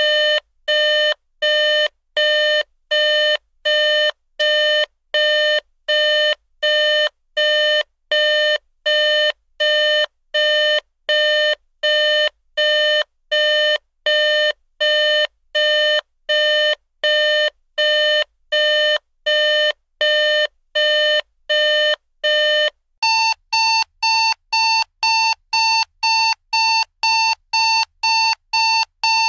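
Electronic digital alarm clock beeping in an even, repeating pattern of about two short beeps a second. After about 23 seconds it switches to a second alarm tone, higher-pitched and slightly faster.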